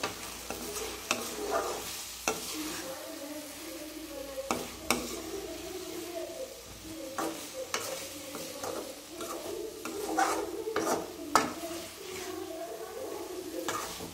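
Metal spoon stirring and scraping prawns in thick tomato-onion masala in a metal kadai, the spoon knocking against the pan again and again, while the masala sizzles in the pan.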